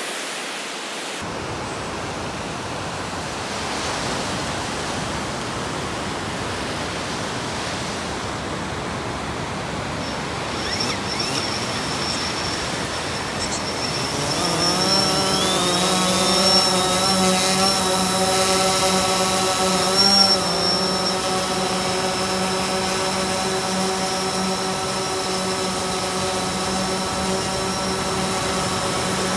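Steady surf noise, then about halfway the DJI Phantom quadcopter's four motors spin up with a quick rising whine and settle into a steady propeller buzz as it hovers, with a brief pitch rise a few seconds later.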